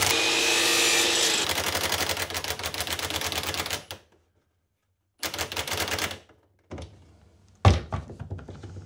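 Cordless impact driver hammering a screw into a solid maple block for about four seconds, then stopping. A second short burst of driving follows about five seconds in, and a single sharp knock comes near the end.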